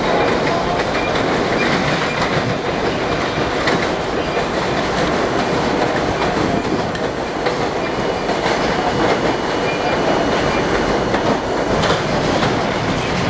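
R32 subway car running at speed, heard from inside the car: a steady rumble of wheels on rail with clacking over the rail joints and a faint, thin wheel squeal now and then.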